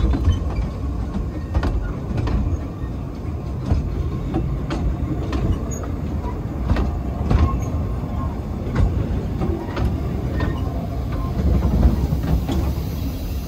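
Narrow-gauge railway coaches rolling past close by: a steady low rumble of wheels on track, with irregular clicks about once a second as the wheels cross rail joints.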